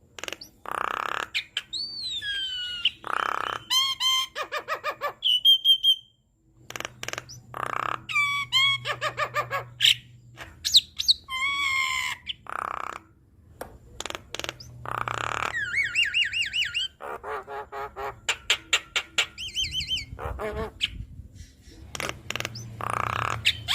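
Javan myna (jalak kebo) singing a loud, varied song, full of imitated calls (isian): harsh squawks, rapid rattles, whistled glides and quick trills follow one another with hardly a pause, broken by one short gap about six seconds in.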